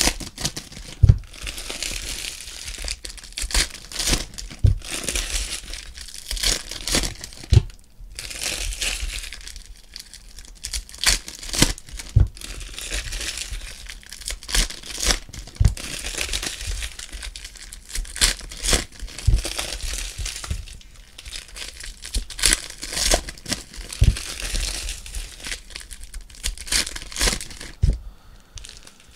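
Foil trading-card pack wrappers crinkling throughout as the packs are torn open and crumpled, with occasional sharp taps.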